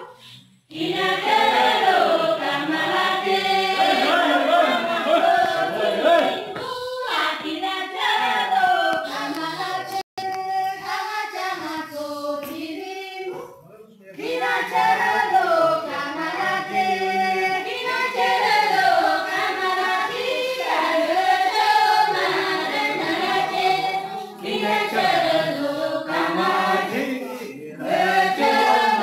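A mixed group of men and women singing a traditional Kinnauri folk dance song in chorus, with no instruments. The singing breaks off briefly a few times between phrases.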